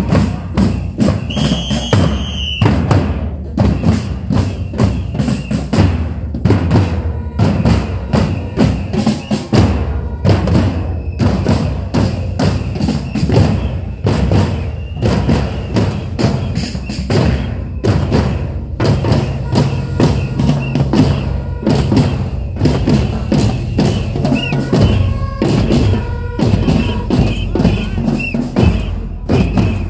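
Marching drum group playing bass drums and snare drums together in a steady, driving beat.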